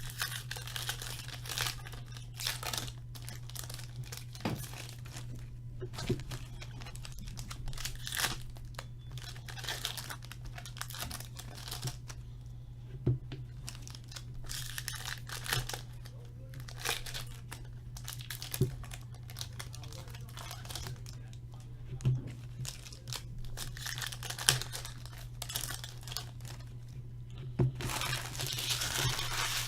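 Upper Deck Trilogy hockey card packs being torn open and their wrappers crumpled by hand, in irregular bursts of tearing and crinkling. A few sharp knocks are mixed in.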